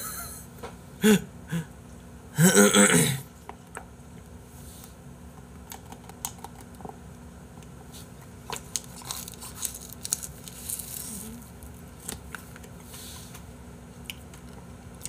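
A man laughs in two short bursts in the first few seconds, the second longer and the loudest. After that come scattered small clicks and crinkles of plastic packaging and eating noises as he eats an ice pop.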